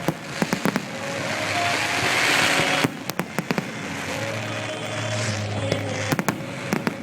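Aerial fireworks display going off: clusters of sharp bangs near the start, about three seconds in and near the end. They sound over a steady rushing noise that cuts off suddenly about three seconds in.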